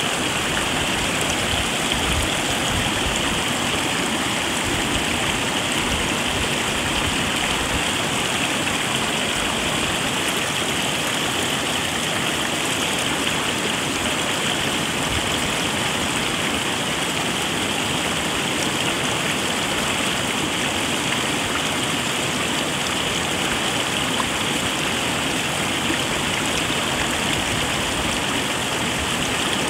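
Mountain stream flowing steadily: a constant, unbroken rush of water.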